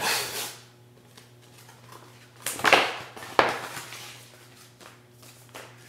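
A FedEx envelope being opened and the papers inside pulled out: a few loud paper rustles and crinkles, the loudest two of them close together about two and a half to three and a half seconds in, with quieter handling between.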